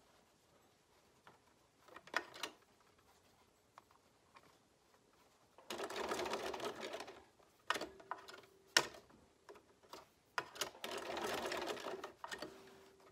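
Bernina sewing machine stitching in two short runs of about a second and a half each, one about halfway through and one near the end, butting two fabric strips together into a rope. A brief steady hum follows each run, with a few sharp clicks between them.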